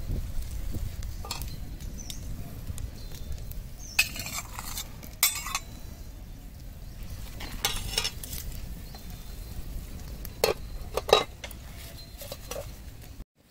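Metal spatula clinking and scraping against an aluminium pot of boiling soup, with a few sharp clanks; the loudest clank near the end is the pot lid going back on. A steady low rumble runs underneath.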